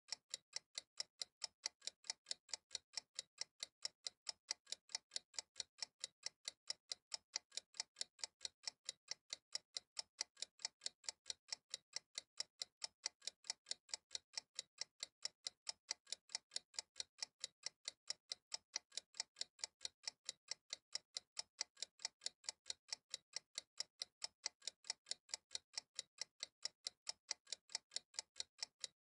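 Countdown timer ticking: sharp, evenly spaced ticks, a few a second, at a steady rate.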